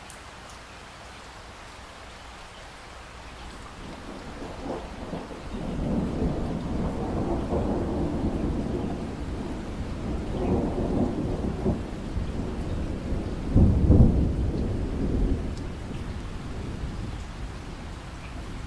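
Steady rainfall with a long rolling peal of thunder. The thunder builds about four seconds in and swells several times. Its loudest crack comes about three-quarters of the way through, then it rumbles away.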